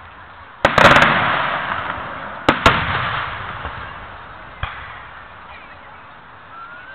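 Fireworks display: aerial shells bursting overhead. A sharp bang comes about half a second in, with a quick crackling cluster right after it. Two more bangs follow about two and a half seconds in, then a smaller one near the middle, each fading in a long echoing rumble.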